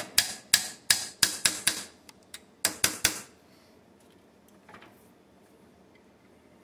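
Hammer blows on a brass punch driving a tight clamp-on gas block along an AR-15 barrel held in a vise: a quick run of about a dozen sharp metallic taps over the first three seconds.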